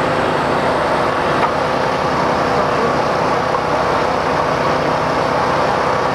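An engine running loudly and steadily at one constant speed, with no revving or pauses.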